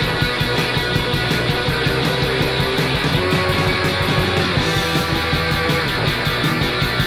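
Post-punk noise rock band recording: distorted electric guitars over bass guitar and drums, playing loud and dense with a fast, even beat.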